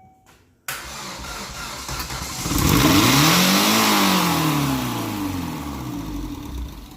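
Engine firing up suddenly less than a second in and running loud, its revs climbing to a high peak about three seconds in, then slowly sagging. The high rev comes from a throttle cable stuck open, holding the throttle plate open.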